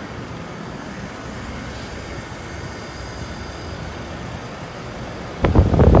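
Trane heat pump outdoor units running in cool mode, a 1998 XE1200 and a 2002 XR11 3.5-ton: steady compressor hum and condenser fan noise. A louder, rough burst of noise comes near the end.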